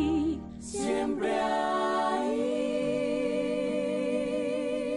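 Music: the closing of a slow ballad, with a wordless sung note held with vibrato from about two seconds in.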